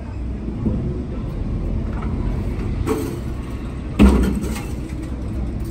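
Ferry engine rumbling steadily at the pier while the boarding gangway comes down onto the deck. It lands with one loud clank about four seconds in, after a lighter knock just before.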